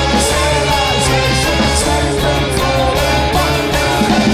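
Live band playing loudly, with electric guitar, a steady drum beat and a singing voice.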